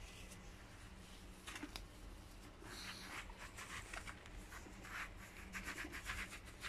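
Faint rustling and scratching of a hand smoothing fresh wood-shaving bedding, the strokes coming more often in the last couple of seconds.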